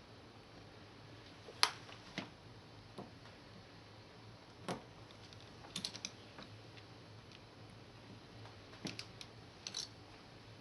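Scattered light clicks and taps of small metal hand tools being handled and set into holes in a soldering pad, about a dozen irregular knocks with short pauses between them.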